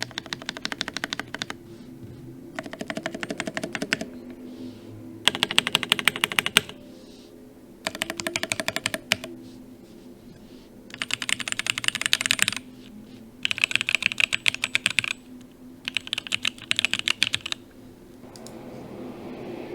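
Midway60 custom mechanical keyboard with Gateron Oil King linear switches and aluminium keycaps being typed on: seven quick bursts of rapid keystrokes, each about a second and a half long, with short pauses between. A soft hiss rises near the end.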